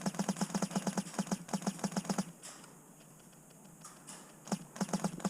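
Airsoft gun firing on full auto in rapid bursts of evenly spaced shots, about ten a second. The firing stops for about two seconds midway, then starts again.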